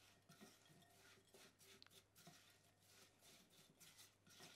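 Faint, irregular scraping of a spatula stirring buttery biscuit crumbs in a ceramic mixing bowl.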